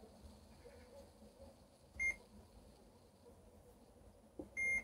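An ARB electronic chessboard running Sargon 4.0 beeps twice, a short high beep about two seconds in and a slightly longer one near the end, as moves are played on it. Just before the second beep a chess piece is set down with a soft knock.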